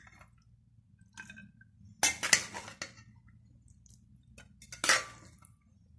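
A metal spoon scraping and clinking against a metal pot and a plate as rice is served. The clatter comes in short bursts: a faint one about a second in, and louder ones about two seconds in and again near five seconds.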